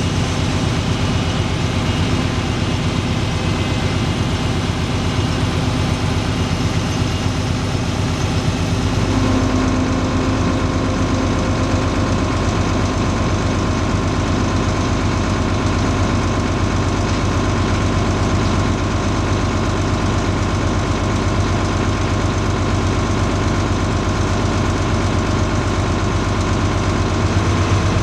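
Large farm diesel engine running steadily under harvest work. About nine seconds in the sound shifts to a stronger low hum with an added steady whine.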